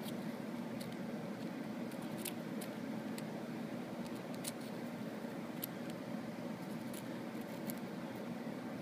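Faint, irregular small clicks and scratches of fingernails and fingertips working the notched retaining ring of a Hasselblad PME51 prism eyepiece as it is unscrewed, over a steady low room hum.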